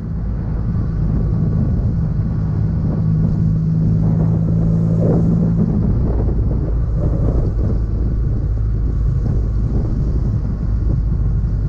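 Motorcycle engine running under way on the road, heard from a handlebar-mounted camera, with wind noise on the microphone. The steady engine tone gives way to a rougher, less even sound about six seconds in.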